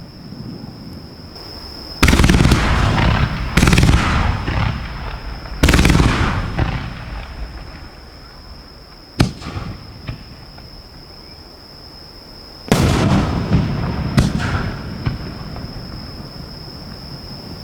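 Aerial firework shells firing and exploding at close range: a heavy boom about two seconds in, two more within the next four seconds, a single sharp crack around nine seconds, then two more booms near thirteen and fourteen seconds, each boom trailing off in a long rumble.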